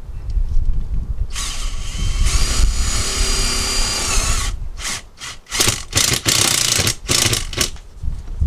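Power drill driving screws to anchor a hose bib: one steady run of about three seconds that winds down as it stops, then several short bursts.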